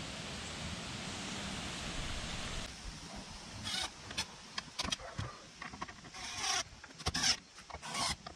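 A steady hiss, then, after a cut about a third of the way in, a cordless drill running in a series of short bursts as it works the screws of a wooden bench seat.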